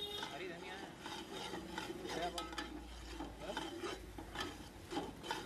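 Long metal ladle scraping and stirring thick, frying biryani masala in a large aluminium pot, with repeated small scrapes against the pot and a light sizzle underneath as the masala is fried down.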